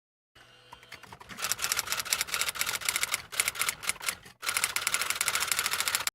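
Rapid typewriter-style clicking, an edited-in typing sound effect. It starts abruptly, breaks off for a moment about four seconds in, then resumes and cuts off suddenly.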